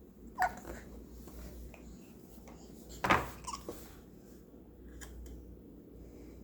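A baby hiccuping: a short hiccup about half a second in and a louder one about three seconds in.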